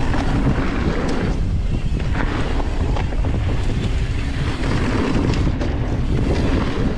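Wind rushing over the camera microphone while a full-suspension mountain bike descends a dusty dirt trail, with tyre roar and scattered clicks and clatter from the bike and loose ground.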